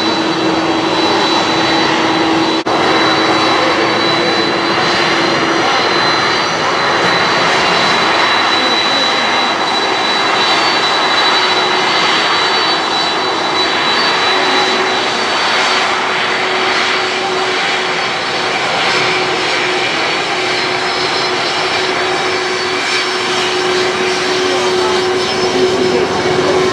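Boeing 747-400's General Electric CF6 turbofan engines running at low power on the ground: a steady jet rush with a high whine and a lower hum.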